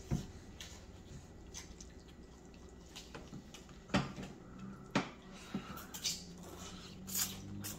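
Someone eating noodles with chopsticks: faint wet mouth sounds of slurping and chewing, with a few short sharp clicks and ticks scattered through.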